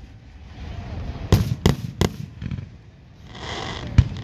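Aerial fireworks shells bursting: three sharp bangs in quick succession about a second and a half in, and another bang near the end.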